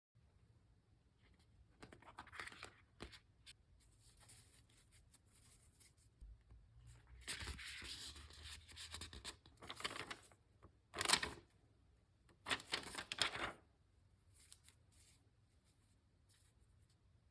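Typing on a Weikav Lucky65 V2 keyboard with lubed Gateron Smoothie linear switches, an FR4 plate and PBT Cherry-profile keycaps. The keystrokes come in several short runs with quiet pauses between them.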